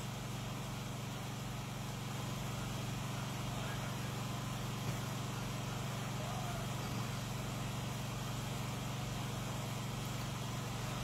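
A steady low hum with an even hiss underneath, unchanging throughout, and a faint soft tap about five seconds in.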